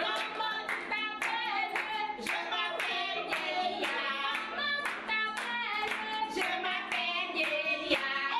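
Singing accompanied by rhythmic hand claps, about two claps a second, over a steady low held accompaniment.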